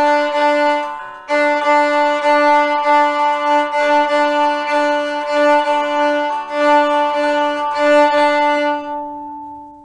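Viola bowed, playing a short exercise in a dotted-quarter and eighth-note rhythm, mostly on repeated notes. There is a short break about a second in, and the last note is held and fades out near the end.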